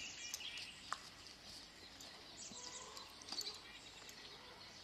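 Faint outdoor ambience with distant birds chirping, and a single short click about a second in.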